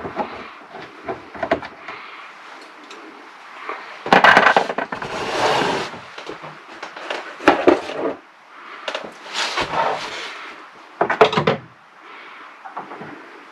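Small clicks of a screwdriver working the terminal screws on a solar charge controller, then about five louder scraping, rustling handling noises as tools and cables are moved about on a wooden desk.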